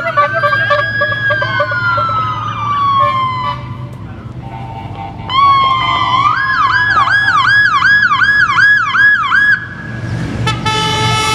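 Police escort sirens: a wail gliding down in pitch, then about five seconds in a fast yelp cycling about three times a second, then a steady horn blast near the end.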